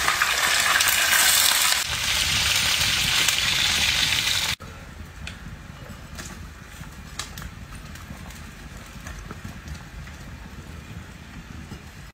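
Water poured into a hot wok of frying eels, sizzling loudly. The sizzle cuts off suddenly about four and a half seconds in and gives way to a much quieter simmer of steaming broth, with a few faint clicks.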